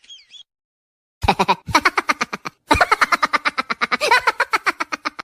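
Laughing sound effect: a rapid staccato laugh of about ten pulses a second, coming in three runs with brief breaks, the last and longest starting just under three seconds in.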